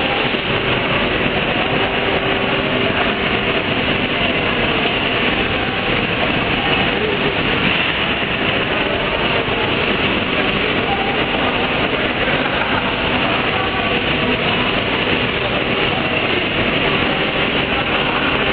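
Industrial roti-making line running: its rod conveyors and machinery make a loud, steady mechanical din with a faint steady hum, unchanging throughout.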